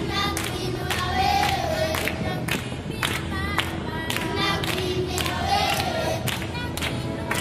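Live music with voices singing a melody over a sharp, even beat of about two strokes a second.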